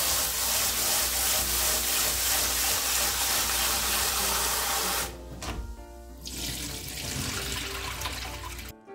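Water running from a kitchen tap into a sink, turned off about five seconds in and running again soon after, with soft background music.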